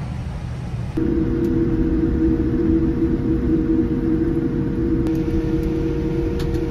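Jet airliner cabin noise: a low rumble, joined about a second in by a steady drone of the engines and air system.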